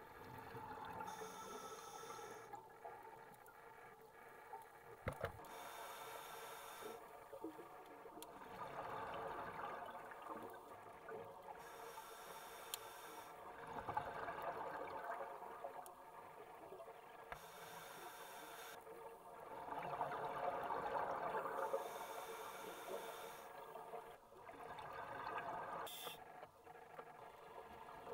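Scuba breathing through a regulator underwater, in a slow, regular cycle: a short hiss on each inhale, then a swelling rush of exhaust bubbles on each exhale, about every five seconds.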